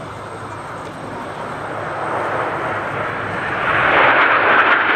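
A formation of Aermacchi MB-339 jet trainers, each powered by a Rolls-Royce Viper turbojet, making a low pass. The jet noise rises steadily as they approach and is loudest from about four seconds in.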